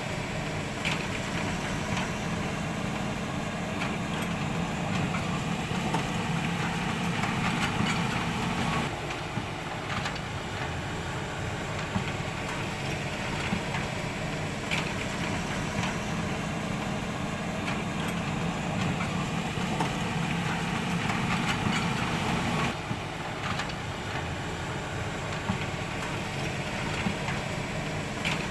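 Toy radio-controlled excavator running steadily, with a mechanical hum whose lower part drops away briefly twice, about nine and twenty-three seconds in, and a few faint clicks.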